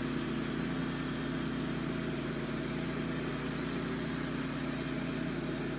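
Wood-Mizer LT35 portable band sawmill's engine running steadily at a constant pitch.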